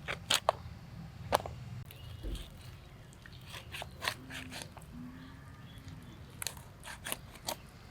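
Blade cutting up a raw rooster: irregular sharp cracks and clicks as it goes through joints and bone, some coming in quick runs of several.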